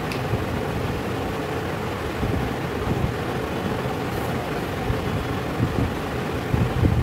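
Steady low rumble with a hiss over it, continuous background noise like a running motor or fan.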